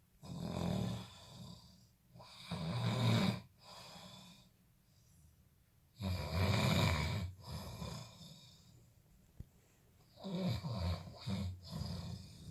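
Snoring: four long snores at uneven intervals, each a noisy swell a second or more long, with quiet breathing gaps between them.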